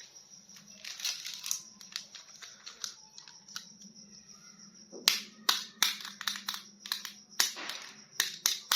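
Plastic crinkling and light clicks from small toy figures and their packaging being handled. The crackles are sparse at first and come thick and fast from about five seconds in.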